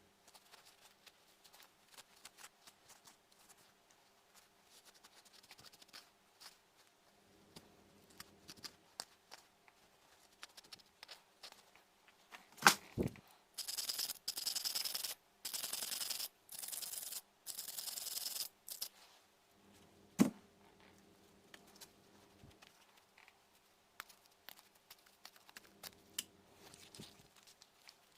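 Repair handling noises with light clicks and rubbing, then a sharp click, five short hissing bursts of about a second each, and another sharp click.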